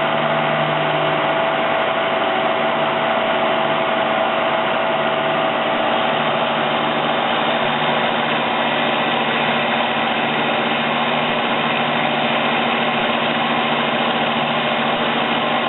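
Milling machine running steadily, its end mill cutting a groove into a small cast vise body: a constant motor and spindle whine with a slight regular pulsing underneath. It cuts off suddenly at the end.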